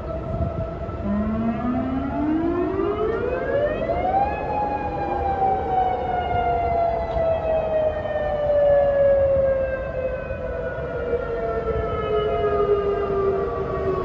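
Outdoor tornado warning sirens sounding. One siren winds up in pitch over about three seconds and then slowly falls away, over the steady tone of another siren, warning of a tornado.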